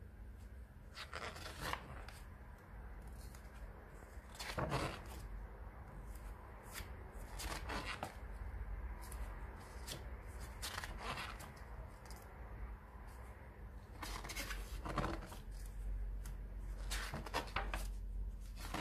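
Pages of a graphic novel being turned by hand, a short paper swish about every three seconds, some six turns in all.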